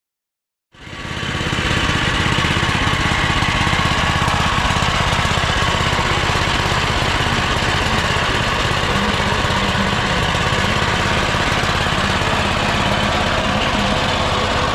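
Small single-cylinder engine of a vintage walking tractor running steadily, with a fast even firing pulse. It comes in abruptly about a second in.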